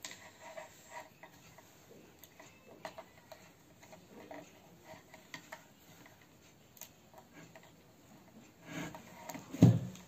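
Faint clicks and rustles of speaker wire being handled and pushed into the terminal on the back of a studio monitor, with one louder knock against the cabinet near the end.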